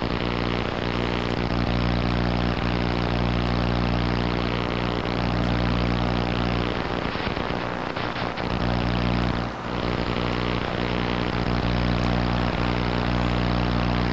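A loud, steady low drone, rich in overtones, that briefly dips about eight and again about nine and a half seconds in.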